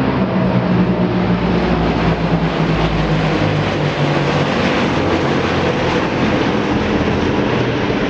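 Military aircraft flying over: loud, steady engine noise with a low engine tone that slowly shifts in pitch as they pass.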